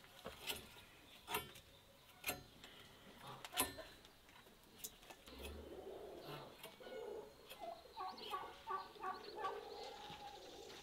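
A few sharp clicks and knocks in the first four seconds, then farmyard fowl calling in a run of quick, rattling notes through the second half.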